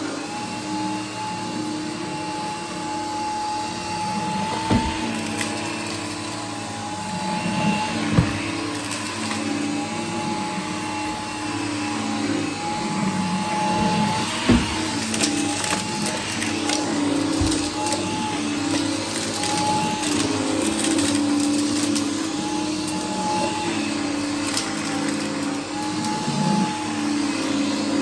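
Gtech AirRam K9 Mk2 cordless upright vacuum cleaner running on carpet, its motor and brush bar making a steady whine over a hiss, wavering slightly in pitch as it is pushed back and forth. A few sharp clicks break in now and then as it sweeps up the scattered debris.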